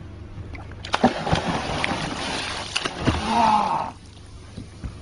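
Violent splashing and churning of water at the surface beside a boat, starting about a second in and lasting some three seconds, as a hooked fish thrashes there.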